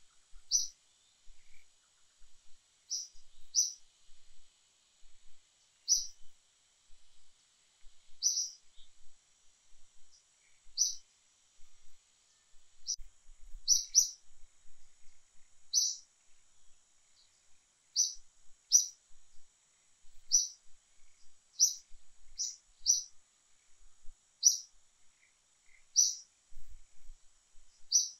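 A bird repeating a short, high chirp roughly every one to two seconds, over a faint steady high hiss.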